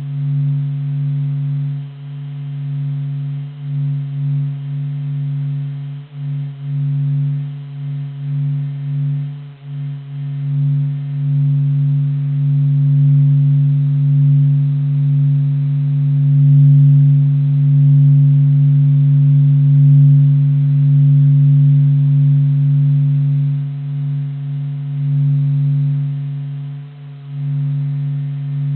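Sonification of the Sun's acoustic oscillations, made audible from 40 days of SOHO Michelson Doppler Imager data: a steady, deep hum with a fainter overtone above it, wavering in loudness and fullest about halfway through.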